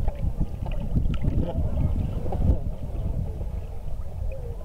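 Shallow seawater sloshing against a camera held at the surface, with wind buffeting the microphone: an uneven low rumble broken by small splashes.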